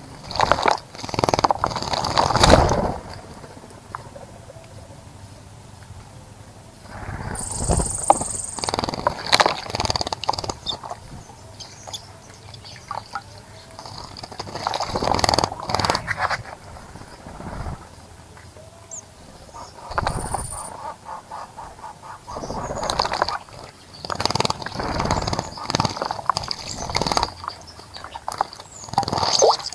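Birds splashing and fluttering in a bird bath, in repeated bursts of a few seconds with quieter gaps between. A high, thin call sounds twice.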